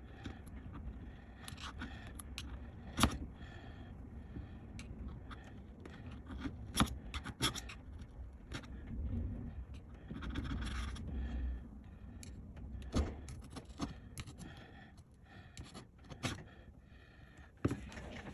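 Scraping and peeling of old adhesive tape in a MacBook Pro A1708's battery bay, as the tape residue is cleaned off and new double-sided tape is laid down. Scattered sharp clicks and taps from tools and fingers on the case run through it, with a longer scratchy stretch about ten seconds in.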